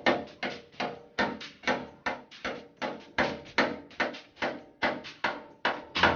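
Background electronic music: a steady, evenly repeating beat of about three to four hits a second over a sustained tone, building toward a drop.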